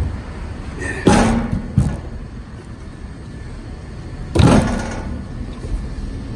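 Split hickory firewood logs being shifted in a pickup truck bed, knocking and scraping against other logs and the bed. There are two loud clattering knocks, about a second in and about four and a half seconds in, and a lighter knock just before the two-second mark.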